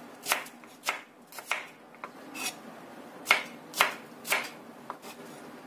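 Kitchen knife slicing shallots on a cutting board: about eight sharp, irregular taps.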